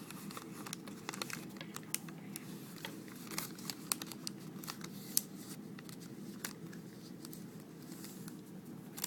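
Square sheet of origami paper crinkling and crackling in irregular bursts as it is pressed and folded by hand, the sides being pushed in along earlier creases to form the origami flapping bird.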